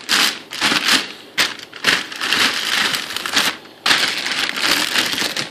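Packing material crinkling and rustling as it is handled while a computer case is unpacked, in several spells with short pauses.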